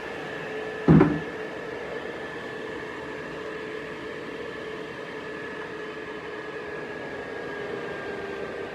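AC Infinity Cloudline Pro S6 150 mm inline duct fan running with a steady hum and whine, its pitch sinking slightly over the last few seconds. A single loud thump about a second in.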